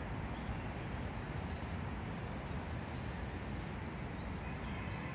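Steady outdoor background noise: a low, even rumble with a faint hiss above it, unchanging throughout.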